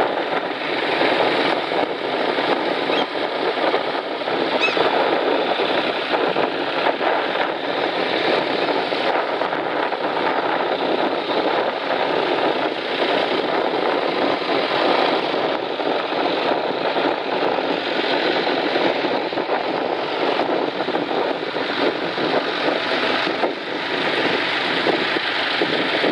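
Engines of a line of vintage tractors, Ford, Fordson and grey Ferguson models among them, running steadily as they drive past one after another, blending into one continuous engine sound.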